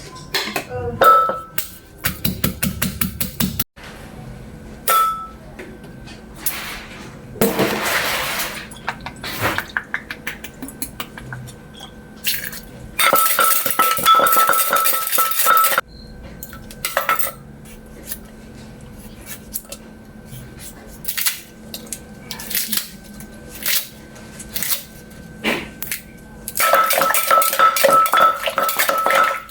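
A pestle pounding and a spoon clinking in a mortar while som tam-style seafood salad is pounded and mixed. Irregular knocks and clinks are broken by a quick run of strokes a couple of seconds in and two longer spells of fast, steady clatter, one about halfway and one near the end.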